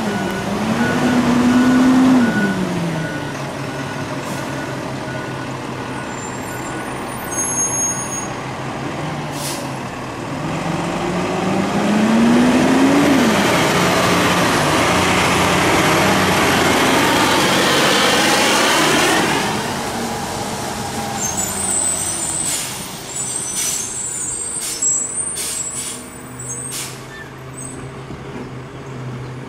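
Freightliner-chassis Labrie Expert Helping Hand automated side-loader garbage truck revving its engine as it pulls off, with a steady beeping alarm in the first several seconds. It then passes close by, engine and tyres rising to a loud rush for several seconds before fading as it drives away.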